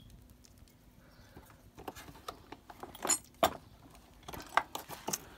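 Scattered clicks and knocks of the pressure washer's hard plastic housing being handled and shifted over the motor, starting about two seconds in, with the sharpest knocks around the middle.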